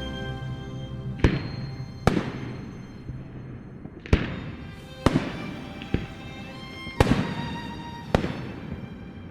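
Fireworks bursting in the air: about seven sharp bangs at uneven intervals of one to two seconds, each trailing off briefly, over background music.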